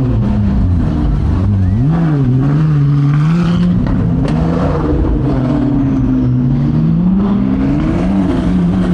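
Supercar engine, seemingly the Ferrari 458 Italia's V8, rolling at low speed and being blipped, its exhaust note rising and falling several times.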